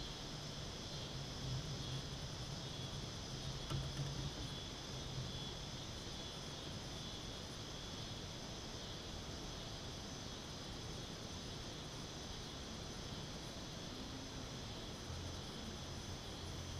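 Steady chorus of insects calling from the surrounding trees, an even high-pitched drone that does not change, with a faint low hum underneath at times.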